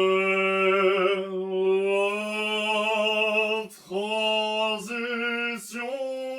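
A single voice singing slow, long-held notes, the first held for over three seconds, then a few shorter notes with brief breaks between them.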